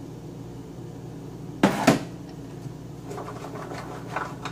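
Two quick, loud clunks about one and a half seconds in as chopped vegetables are tipped from a plastic container into a roasting pan, then faint scraping and knocking as the pan is handled, over a steady low hum.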